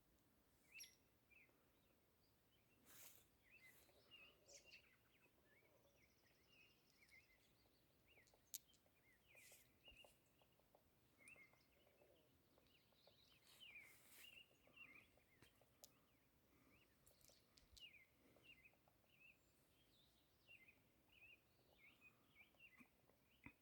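Faint bird chirps and calls, many short notes scattered throughout, over a quiet background, with a few sharp clicks.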